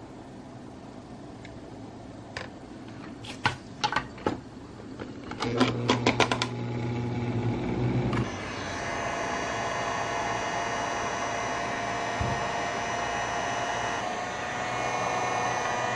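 Scattered clicks and rattles of small parts being handled, then from about eight seconds in a handheld heat gun blowing steadily with a whine, used to shrink heat-shrink tubing over freshly soldered wire joints.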